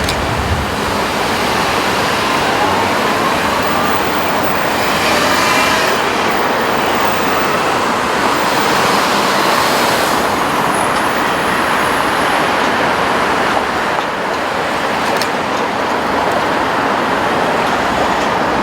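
Steady road and wind noise of a car driving in city traffic, with a faint whine rising and falling about a quarter of the way in.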